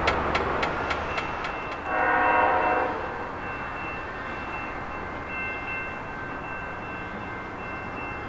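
A railway crossing bell strikes about three times a second and fades out a second in. About two seconds in, a locomotive air horn gives one blast of about a second, followed by faint steady high ringing tones.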